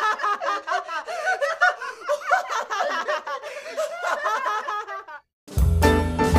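High-pitched, continuous laughter that stops abruptly about five seconds in. Music with piano starts up just after.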